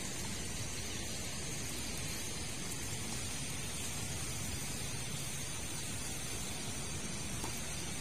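Steady, even hiss of outdoor background noise with no separate events in it.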